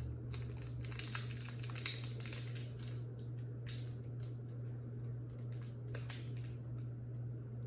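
Foil booster-pack wrapper crinkling and rustling in the hands as it is worked open, in irregular crackles over a steady low hum.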